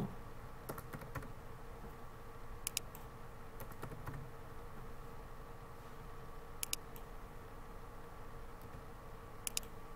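A few scattered computer key presses and mouse clicks, short sharp clicks spaced a second or more apart, some in quick pairs, over a faint steady electrical hum.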